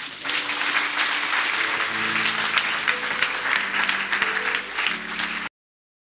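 Congregation clapping, with held instrumental chords that change every second or so underneath; both cut off abruptly near the end.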